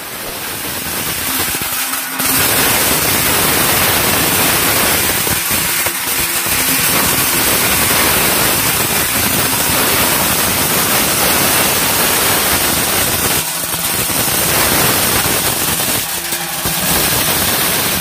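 Motorized maize sheller running while cobs are fed in: a loud, even rattling rush of kernels being stripped and thrown out, dipping briefly a few times.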